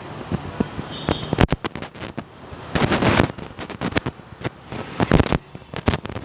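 Firecrackers going off: a rapid string of sharp cracks and bangs, with two louder, longer bursts about three seconds and five seconds in.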